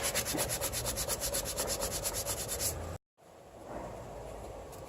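Sandpaper rubbed quickly back and forth by hand on a brake caliper bracket where the pads ride, cleaning up the pad contact area: a fast, even rhythm of scraping strokes. It breaks off abruptly about three seconds in and resumes more faintly.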